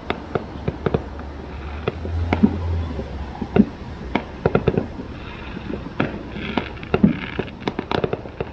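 Fireworks going off in several places: irregular sharp bangs and pops, with quick runs of several pops close together about halfway through and again near the end.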